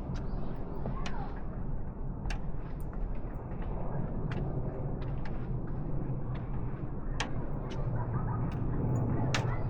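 Outdoor city ambience: a steady low rumble of road traffic, with short sharp ticks every second or so and faint voices in the distance.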